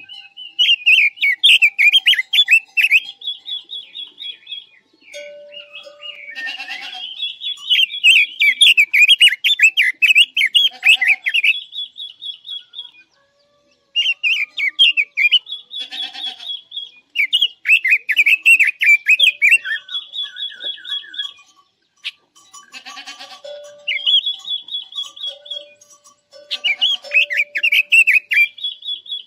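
Red-billed leiothrix (Pekin robin) singing in repeated bouts of rapid, warbling whistled phrases, each a few seconds long, with short pauses between. A few harsh, buzzy calls fall in between the phrases.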